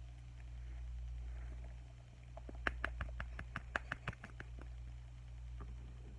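A quick run of small sharp clicks and taps, about five a second, that thins out to a few scattered ones, from hands working with slime and glitter containers, over a steady low hum.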